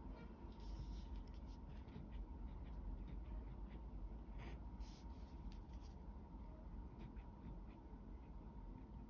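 Pen tip scratching on paper in short, irregular strokes as Chinese characters are written by hand, over a low steady hum.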